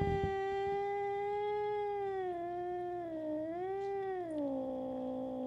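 Domestic cat giving one long, drawn-out yowl that wavers in pitch past the middle, slides lower near the end and cuts off abruptly. It is a hostile yowl at a puppy the cat has just met. A brief low bump sounds at the very start.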